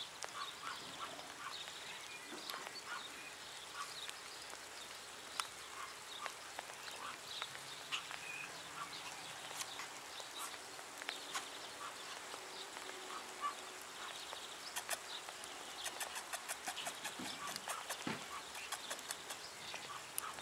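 Schipperke puppy making short, high squeaky growls and yips while biting and tugging at a rag, with a quick run of clicks in the last few seconds.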